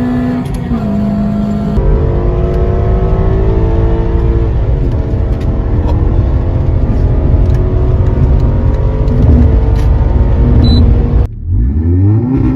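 Car engines revving in a run of short clips. A long stretch of a loud engine accelerating, its note climbing steadily with a brief dip about five seconds in. Near the end an abrupt cut to another engine blipped up and down.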